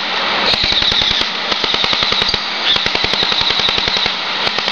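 Airsoft electric gun (AEG) firing on full auto: a rapid, even stream of shots that runs without a break.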